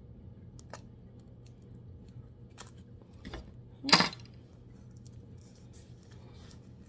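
Tape being worked off a rolled diamond-painting canvas by hand: a few faint clicks and crinkles, and one sharp, much louder snap about four seconds in.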